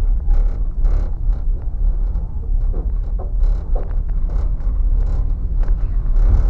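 Passenger train running on the track, a steady heavy rumble with scattered short knocks and rattles.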